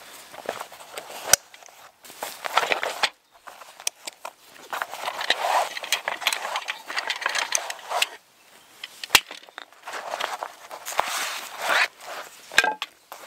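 Nylon fabric of a tool sheath rustling and scraping as it is handled and a wooden-handled tool is slid out, with a few sharp clicks along the way.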